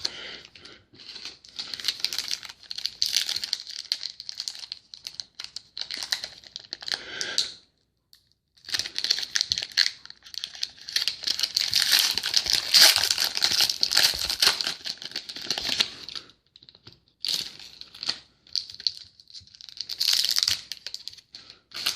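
Crinkling and tearing of trading-card pack wrappers as packs are handled and opened, in three long bouts separated by short pauses.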